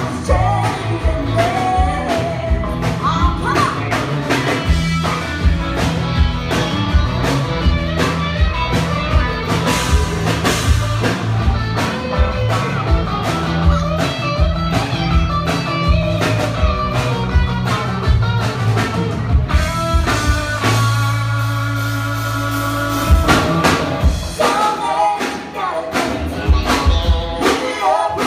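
Live band playing, with two women singing over drums, electric bass and electric guitar. About twenty seconds in, the drums stop for a couple of seconds under a held chord, then the beat comes back.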